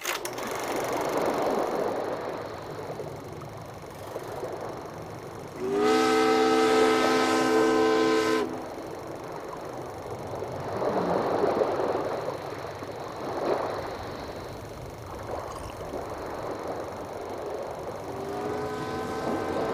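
Train horn sounding one chord of several notes for about three seconds, over a rushing noise that swells and fades like a train running by; a second, quieter blast of the horn starts near the end.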